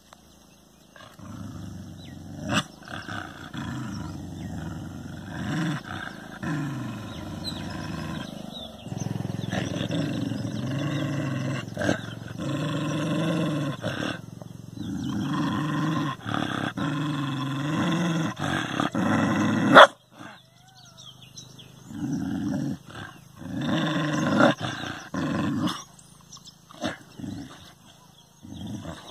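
Dog growling at its own reflection: long, low growls that rise and fall in pitch with brief breaks. The growling cuts off sharply about 20 seconds in and starts again, in shorter bouts, a couple of seconds later.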